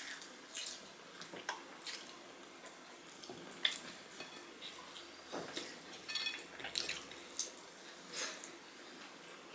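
Wet eating sounds of two people eating rice and curry by hand: chewing and lip smacks, with fingers squishing rice on the plates. The sounds come as short, irregular clicks and squelches.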